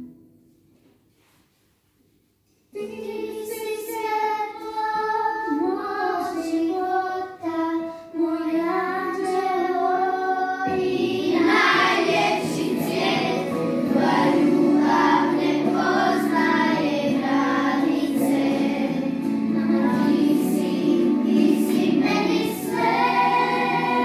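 Children singing a song together to musical accompaniment. It begins after a brief near-silent pause about three seconds in, and the sound grows fuller about eleven seconds in.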